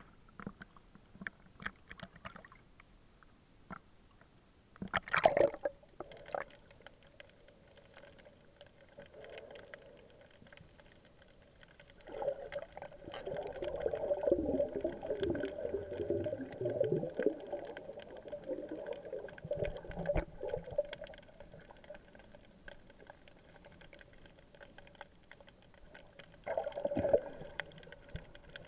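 Muffled water sounds heard through a waterproof action-camera case: a short splash about five seconds in, then a long stretch of bubbling and gurgling as a snorkeler swims underwater, and another splash near the end as the camera breaks the surface.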